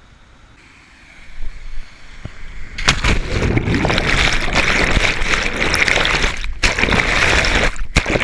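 A jumper falls from a cliff into a river with the camera. Rushing air builds from about a second in, then a hard splash into the water about three seconds in. Loud churning water and bubbles follow while the camera is underwater, and they cut off suddenly at the end as it surfaces.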